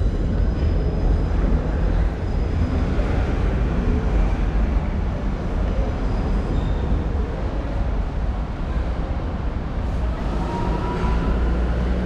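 Steady low rumble of a moving train, with a faint thin squeal about ten seconds in.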